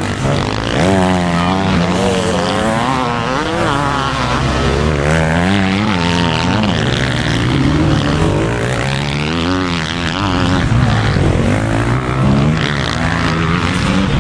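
Several motocross bike engines revving hard and easing off, their pitches overlapping and rising and falling every second or so.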